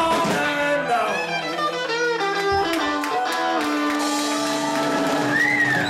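Live rock band playing the ending of a blues-rock song: electric guitars and harmonica ring out over held, bending notes, with the drums dropping out at the start.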